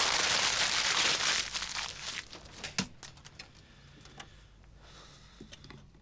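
A sheet of paper crumpled in the hands: loud rustling for about two seconds that dies away, then a few faint rustles and a sharp click near the middle.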